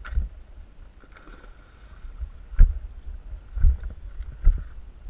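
Wind rumbling on the microphone of a moving camera, with three dull thumps about a second apart in the second half.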